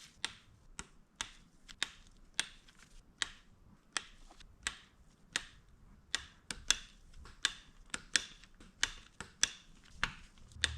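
Torque wrench ratcheting in sharp, separate clicks, about one or two a second and unevenly spaced, as cylinder-head bolts are run down in a first stage to 50 inch-pounds.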